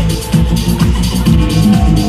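Loud electronic dance music with a steady four-on-the-floor beat, played over a sound system.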